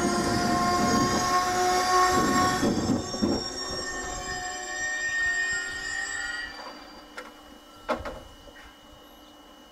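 PKP Intercity passenger coaches braking to a stop, their brakes squealing in several steady high tones over the wheel rumble; the squeal and rumble die away about two-thirds of the way through as the train halts. One sharp knock near the end.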